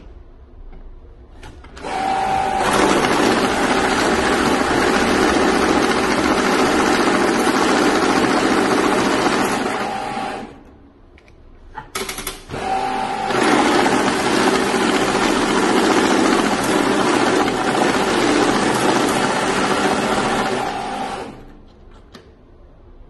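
Banknote counting and sorting machine running twice, about eight seconds each time, feeding a stack of 100 notes through with a fast, even riffling whir. Each run opens with a brief whine. Between the runs there are a few clicks as the next stack is handled.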